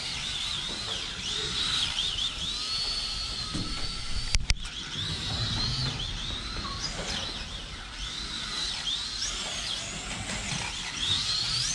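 Slot car's small electric motor whining as it laps the track, the high pitch rising and falling again and again as it speeds up and slows. A sharp click about four and a half seconds in.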